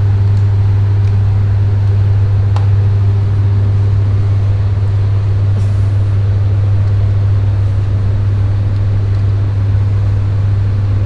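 Energised 11 kV distribution transformer humming: a loud, deep, perfectly steady hum with fainter higher tones stacked above it, the magnetic hum of the core at twice the mains frequency.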